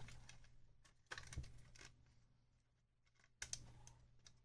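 Faint plastic clicks and scrapes as the drone's plastic shell is pried apart with a credit card, in two short clusters about a second in and about three and a half seconds in.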